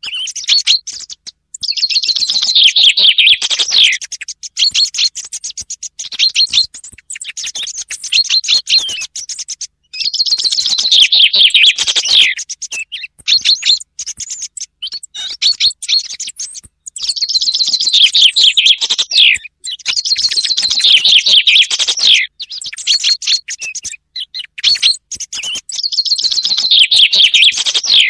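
Common chaffinch singing its song five times, each a quick trill of about two seconds that ends in a falling flourish, with shorter chirps between the songs. It is a bird-call lure recording for hunting.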